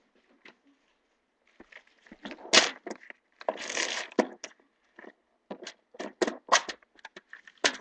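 A pink plastic bead organiser box handled and set down on a foam mat, with a loud knock and a scraping stretch, then a run of sharp plastic clicks as its latches are snapped open.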